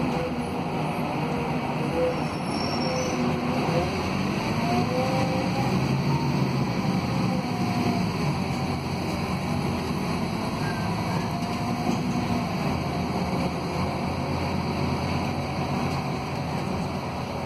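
Cabin noise of a Scania K280UB city bus under way, heard from the rear seats: its 9-litre five-cylinder DC09 diesel running steadily with road and body noise, and a faint whine that rises now and then.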